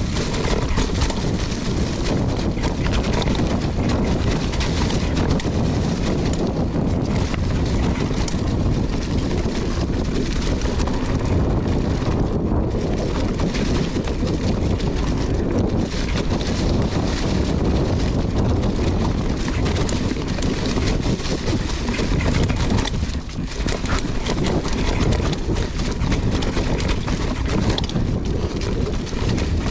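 Wind rushing over the camera microphone while a mountain bike rattles and clatters down a rough, rocky singletrack descent, with a steady stream of small knocks from the tyres and frame.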